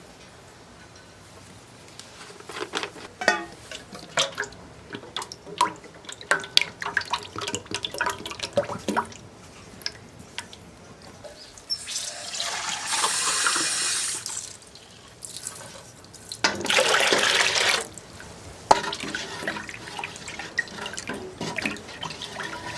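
Water running or pouring in two spells of a few seconds each, with scattered knocks and clinks of things being handled before and after.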